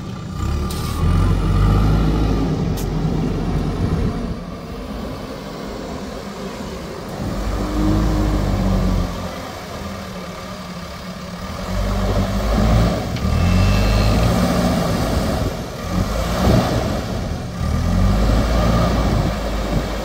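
JCB 3DX backhoe loader's diesel engine running while it drives with a loaded front bucket and lifts it. The engine rises and eases off in revs several times.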